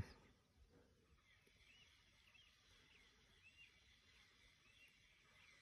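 Near silence of a still, windless outdoor spot, with faint scattered bird chirps every second or so.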